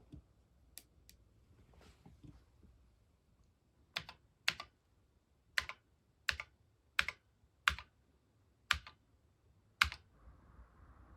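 Keys on a Sharp MZ-80K2E computer keyboard pressed one at a time: a couple of faint clicks, then about eight sharp keystrokes about a second apart, starting about four seconds in.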